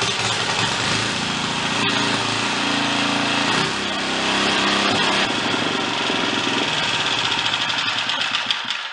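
Small single-cylinder Tecumseh 3.5 HP four-stroke engine on a Craftsman tiller running steadily just after starting, then stopping at the very end. Freshly repaired carburetor (plugged power jet cleared) and governor linkage reset: it runs well.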